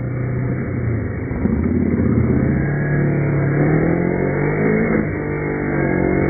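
Kawasaki Ninja sport bike engine accelerating, its pitch climbing, with a short dip about five seconds in before it climbs again, as at a gear change.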